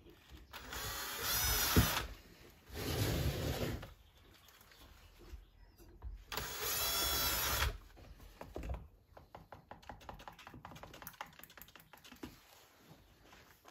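18-volt cordless drill-driver driving screws in three runs of about a second each, its motor whine rising and falling. Scattered light clicks and taps follow.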